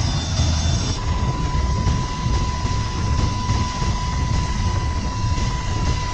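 Steady low rumbling noise, with a thin steady high tone that comes in about a second in.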